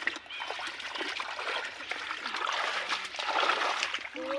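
Shallow muddy water splashing and trickling, with many small irregular splashes, as hands work through it.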